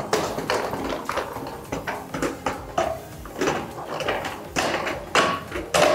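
Wooden spatula scraping and knocking in a wok as tomato masala is stirred, in irregular strokes about two a second, over a steady sizzle of koftas frying in oil.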